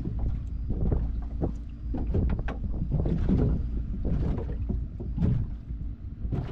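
Strong wind buffeting the microphone in irregular gusts over a constant low rumble.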